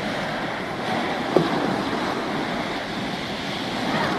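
Waves on choppy harbour water and wind on the microphone, a steady rushing noise, with one brief knock about a second and a half in.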